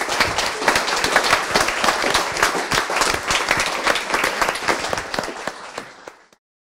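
Audience applauding, dense steady clapping that tapers off and stops near the end.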